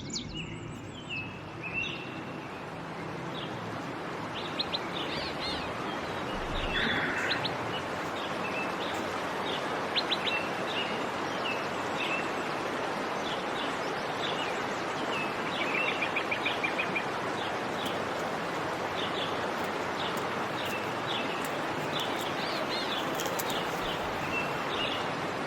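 Small birds chirping in short, repeated calls throughout, with a quick run of rapid notes about two-thirds of the way in, over a steady background hiss.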